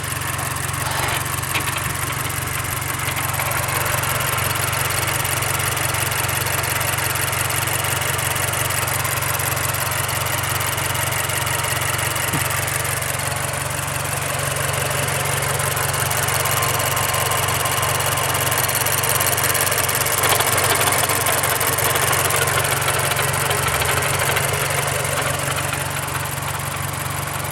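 2009 Mazdaspeed 3's turbocharged 2.3-litre direct-injection four-cylinder idling steadily, with the loud ticking of its direct injection, getting a little louder in the middle of the stretch before settling again.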